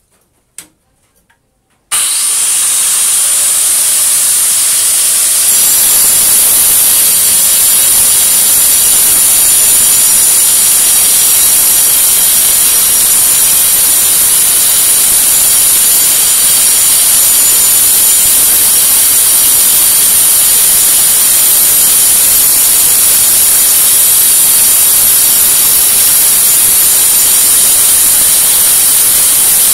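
A handheld electric power tool switched on about two seconds in and running steadily at full speed: a loud, hissing high whine that steps up a little a few seconds later and holds steady.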